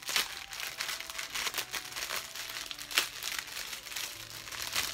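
Clear plastic bag crinkling as it is handled and opened, in a string of irregular crackles, the sharpest about three seconds in.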